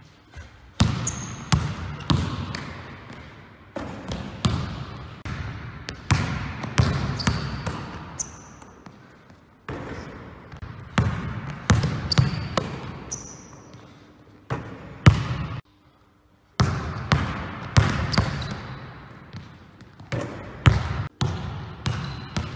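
A basketball being dribbled hard and fast on a sports-hall floor, each bounce echoing in the large gym. Now and then there is a brief high squeak of sneakers on the court.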